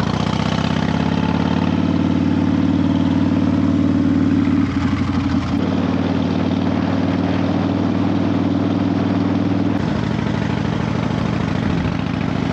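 Harley-Davidson Fat Bob's V-twin engine running under way at a steady cruise. Its note dips and changes briefly about five seconds in and drops slightly near ten seconds, as the throttle or gear changes.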